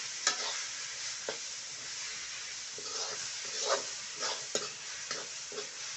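Amaranth greens, just added to onion and tomato in hot oil, sizzling in a kadhai while a metal spatula stirs and scrapes them around the pan in irregular strokes.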